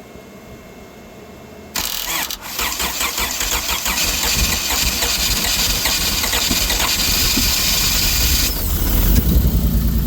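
Honda J32 V6 cold start. After a short quiet, the starter cranks it hard for about six seconds, and near the end the engine catches and settles into a steady idle. The car has not been started in a while, and its fuel filter has just been replaced.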